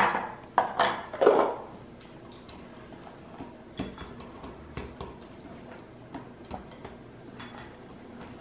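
A few loud knocks and clatters in the first second and a half as raw eggs are emptied from a plastic container into a glass mixing bowl. Then a wire whisk beats the eggs into the butter and sugar, clicking lightly and irregularly against the glass.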